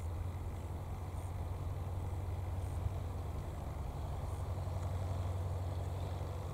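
Steady low engine rumble, with a few faint short high chirps over it.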